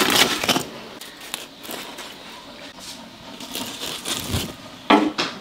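Pan-fried flatbreads with crisp, lacy bottoms being handled and stacked on a bamboo tray: light crackling, rustling and small taps, with brief louder bursts at the start and near the end.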